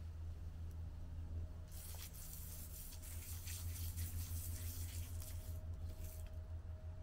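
Garden hose running water into a bucket: a steady hiss starts about two seconds in and cuts off near the end, followed by a short last spurt.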